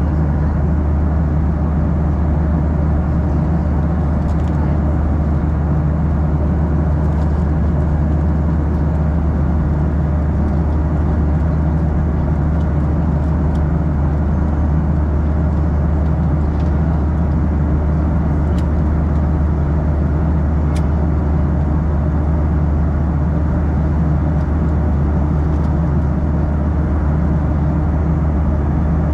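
Cabin noise of a Boeing 737-800 airliner in cruise flight, heard from a window seat: a steady, unchanging low drone.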